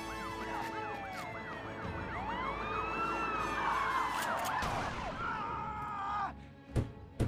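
Several police car sirens sounding together, a fast yelp over slower rising-and-falling wails, cutting off suddenly about six seconds in. Two loud sharp gunshots follow close together near the end.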